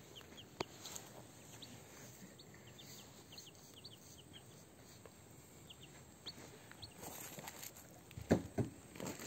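Muscovy ducklings and a chick peeping, many short high peeps scattered throughout. Near the end a few loud thumps and rustles.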